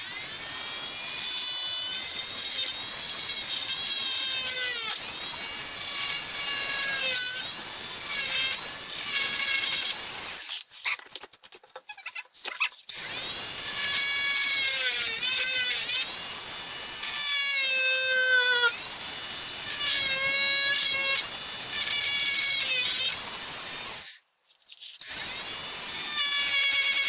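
Oscillating multi-tool cutting into drywall: a loud buzzing whine whose pitch wavers as the blade bites. It runs in three spells, with short stops about ten seconds in and again near the end.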